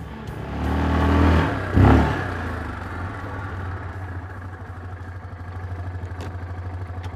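Quad bike (ATV) engine running as it drives up and slows, loudest about two seconds in, then idling steadily.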